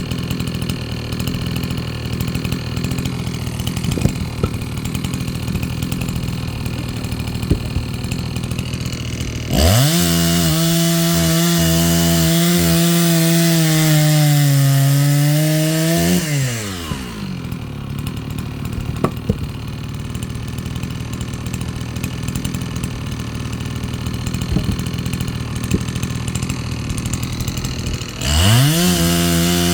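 Chainsaw idling, then revved up about ten seconds in and run hard for about six seconds, its pitch sagging as it bites into the wood. It drops back to idle and revs up again near the end.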